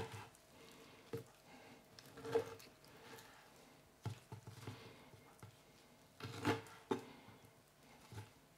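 Knife cutting raw chicken thigh into cubes on a plastic cutting board: a few soft, irregularly spaced knocks of the blade on the board.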